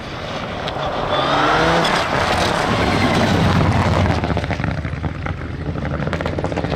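Rally car engine at high revs approaching and passing close, its pitch rising as it nears. As it pulls away, the engine note is mixed with a rapid crackling.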